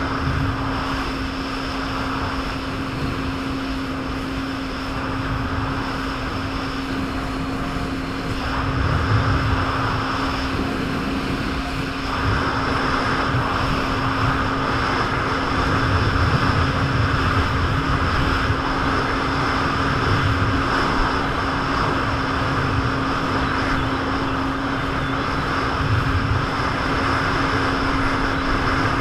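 Jet ski engine running steadily at speed, with rushing wind and water noise; it gets louder about twelve seconds in.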